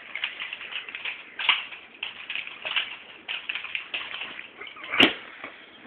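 Nunchucks being swung fast, an irregular run of short swishes and clacks, with one sharp knock about five seconds in.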